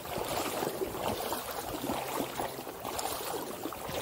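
Shallow lake water lapping and sloshing close to the microphone: a steady wash of small splashes and gurgles.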